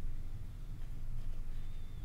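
Quiet room tone: a steady low hum with no distinct handling sounds, and a faint thin high tone near the end.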